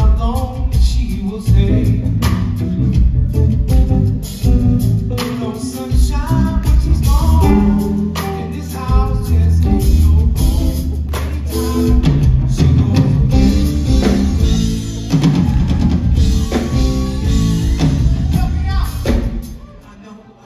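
Live band music: a drum kit and electric bass playing together, with a voice over them. The music stops suddenly near the end.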